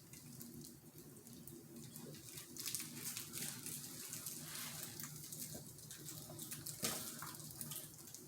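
Basset hound puppies scuffling and rustling as they play with toys in a kennel: soft scratching and many small clicks, with a sharper click about seven seconds in. A steady low hum runs underneath.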